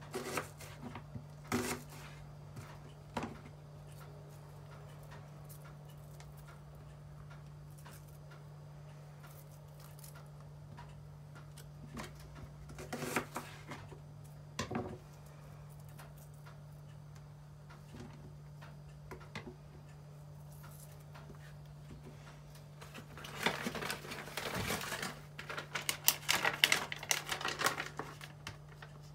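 A few light taps and knocks of a knife and red onion on a plastic cutting board, over a steady low hum. Near the end comes a long stretch of crinkling as a black plastic food packet is picked up and opened.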